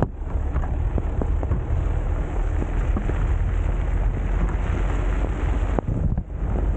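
Wind noise on the microphone of a camera held outside a Citroën C15 D van driving on a snow-covered road, mixed with tyre noise on the snow and scattered small crackles. The noise drops briefly about six seconds in.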